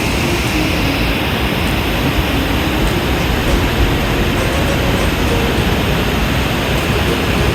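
Loud, steady rushing noise, even across high and low pitches, with faint held tones beneath it.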